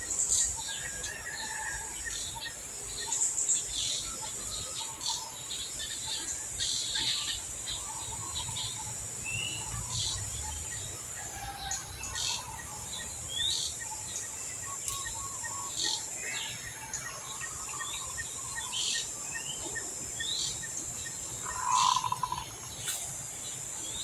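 Outdoor nature ambience: a steady high insect drone under many short bird chirps and calls, with a louder, lower call about 22 seconds in.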